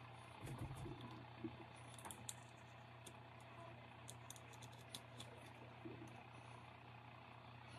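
Near silence with faint, scattered small clicks and rustles from hands turning a glitter tumbler and peeling clear transfer tape off its vinyl decal, over a faint low hum.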